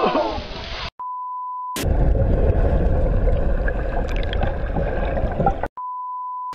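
A splash fades out at the start, then comes a short steady test-tone beep. After it, muffled underwater rumbling and bubbling from a camera held under water runs for about four seconds. A second identical test-tone beep comes near the end, with the colour-bar test pattern.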